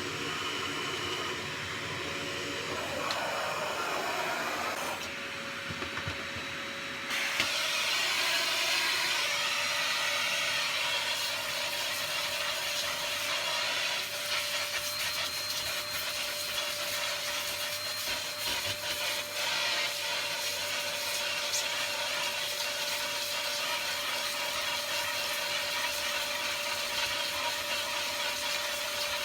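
Vacuum cleaner running on a floor: a steady rushing of air with an even motor whine. The rushing grows louder about seven seconds in.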